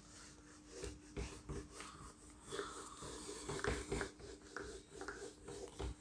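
Handheld whiteboard eraser rubbing across a whiteboard in a series of irregular wiping strokes.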